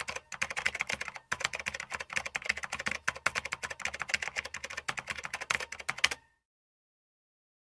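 Keyboard typing sound effect, rapid key clicks, accompanying an on-screen caption being typed out. It cuts off abruptly about six seconds in, followed by dead silence.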